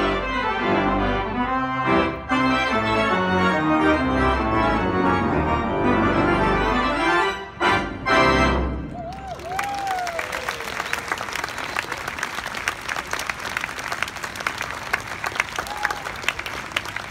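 Pipe organ playing full sustained chords, ending on a final chord about nine seconds in. The audience then applauds, with a short whoop just after the music stops.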